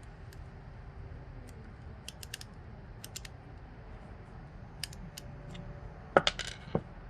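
Small steel screwdriver working the Phillips screw in the bottom of an American Lock 1100 padlock: faint scattered metallic ticks, then about six seconds in a quick cluster of louder sharp metallic clicks with brief ringing.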